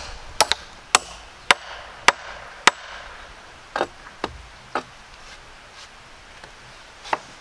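Hatchet chopping into a wooden post, sharp strokes about two a second, then a few lighter knocks on the wood and a last one near the end.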